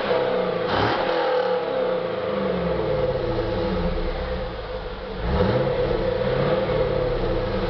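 2001 Pontiac Firebird Formula's warm 5.7-litre LS1 V8 revved twice, once about a second in and again about five seconds in, its pitch rising sharply each time and falling back toward idle.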